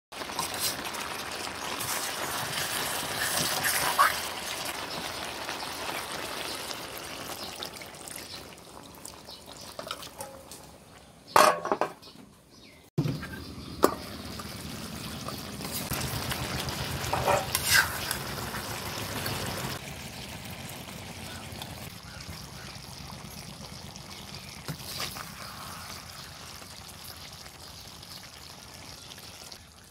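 Pork belly and wood ear mushrooms sizzling in an aluminium pot as they are stirred, with spoon scrapes and a few sharp metal clinks against the pot and its lid.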